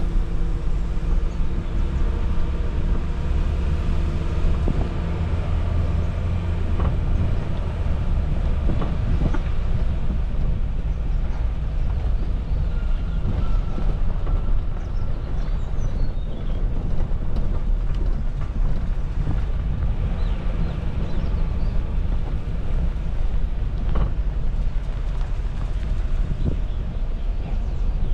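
Suzuki Jimny driving off-road: a steady low rumble of engine and tyres on rough ground, with occasional knocks and rattles.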